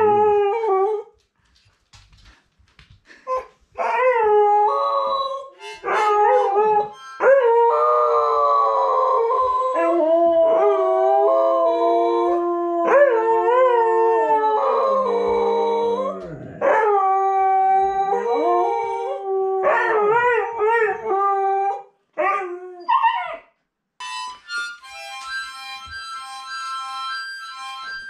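Siberian huskies howling, with long wavering howls that at times overlap as two dogs howl together, broken by short pauses. Near the end the howling stops and a harmonica plays steady held chords.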